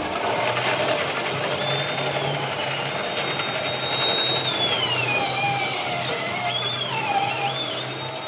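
Factory assembly-hall noise: machinery and power tools running, with a high whine that holds steady, then slides down and wavers about halfway through, over a low hum that pulses on and off.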